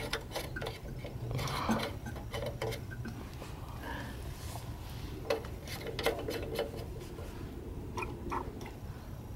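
Scattered light clicks, taps and rubbing from hands handling a lawn mower's carburetor and engine parts. The engine is not running.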